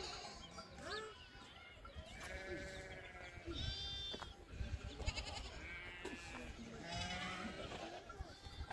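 A flock of sheep and goats bleating: many calls of different pitches overlapping, some long and held, some short, over a low rumbling noise.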